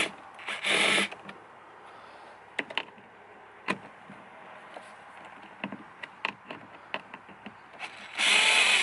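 Power screwdriver whirring briefly about half a second in, then scattered clicks and taps, then the screwdriver running again for over a second near the end as it backs a Torx screw out of the soundbar grille.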